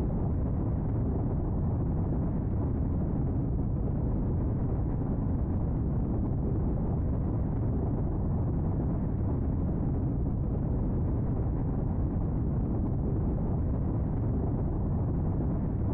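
Steady, loud rumbling noise with no rhythm or pitch. It starts abruptly just before and holds unchanged throughout.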